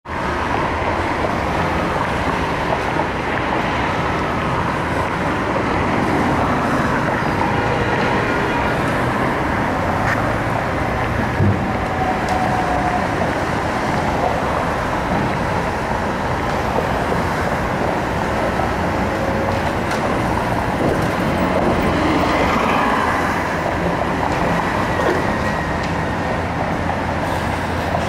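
Steady city street traffic noise, cars driving past, over a continuous low engine drone. A single sharp knock sounds about eleven seconds in.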